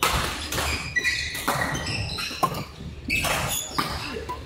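Badminton play: a run of sharp hits and scuffing knocks, with short high squeaks of shoes on the court floor.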